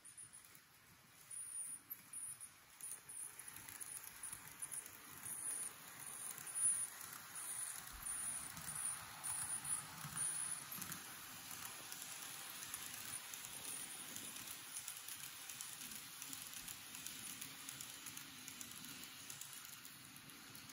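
A model Odakyu Romancecar 50000 VSE train running on model railway track: a light, rapid clicking and rattling of its small wheels on the rails, with a faint high whine that comes and goes in the first half.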